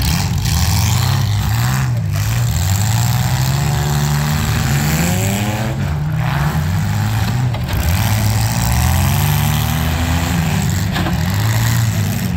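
Several demolition-derby compact cars' engines running together, revving up and down so that their pitch keeps rising and falling, loud and steady throughout.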